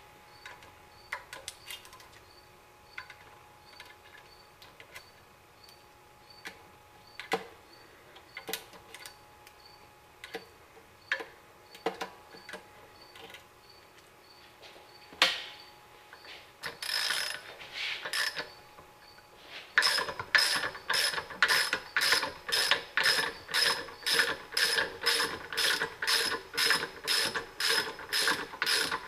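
Scattered light metal clicks and taps as valve keepers are lifted off a Cummins cylinder head with a magnet pickup tool. From about two-thirds of the way in, a socket ratchet clicks steadily, about three clicks a second, as it turns the nut on the valve spring compressor.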